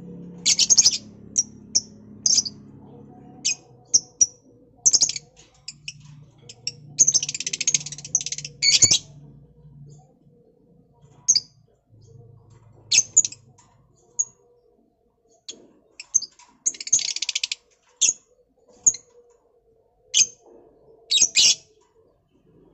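Lovebirds making shrill chirps in short bursts, with two longer runs of rapid chattering notes, one about a third of the way in and one about three quarters in.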